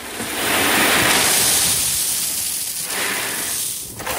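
Loose 1.5-inch river rock pouring down into a dirt hole: a loud rushing rattle of many stones that eases about three seconds in and picks up again just after.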